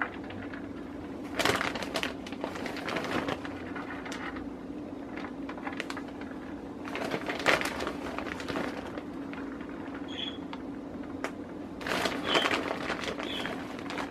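Clear plastic bag crinkling and rustling in several bursts as handfuls of shredded mozzarella are pulled out and scattered over a baking tray, over a low steady hum.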